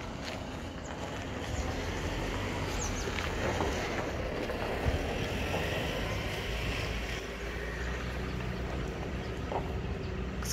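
Low steady rumble of a motor vehicle's engine running, with a single sharp knock about five seconds in.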